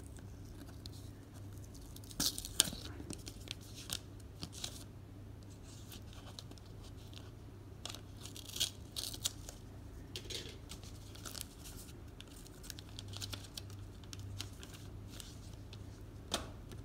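Postcard packaging being torn and peeled open by hand: scattered rustling, crinkling and tearing, with a few sharp crackles, over a low steady hum.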